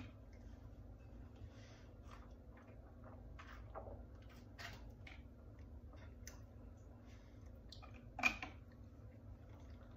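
Faint handling of a plastic smoothie shaker bottle: small clicks as its lid is worked, quiet sips and swallows of smoothie, then the lid being closed, with one brief louder sound about eight seconds in.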